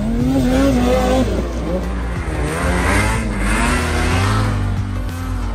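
Several snowmobile engines revving hard, their pitch rising and falling and overlapping as the machines power through deep snow.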